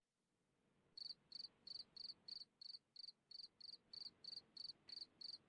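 Cricket chirping in a steady rhythm, about three short chirps a second, starting about a second in.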